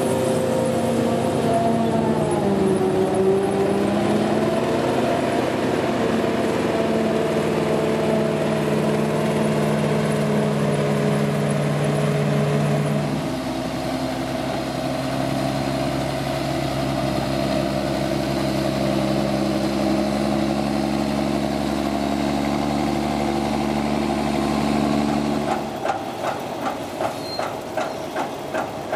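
Claas Jaguar 690SL forage harvester running at work, a steady engine drone whose pitch dips briefly about two seconds in. About thirteen seconds in it gives way to a John Deere tractor's engine running steadily with a deep hum. Near the end a Hawe forage wagon unloading chopped maize sets up a regular clatter, about three knocks a second.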